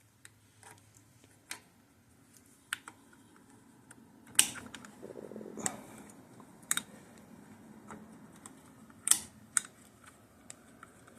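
Irregular small metallic clicks and taps of a gear shift lever being worked onto a motorcycle's splined shift shaft by hand, with a few sharper knocks in the middle and some rubbing of handled parts.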